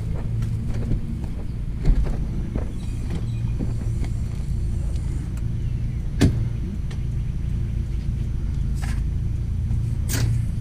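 A steady low engine hum, like a vehicle idling, with a few sharp knocks or clinks on top of it.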